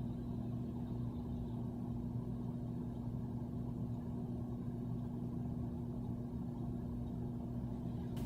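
Steady low hum with two constant tones, unchanging, with nothing else happening.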